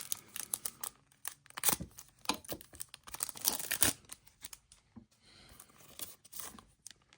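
A trading-card pack's foil wrapper being torn open and crinkled by hand. The crackling is dense for about four seconds, then thins to scattered rustles and dies away near the end.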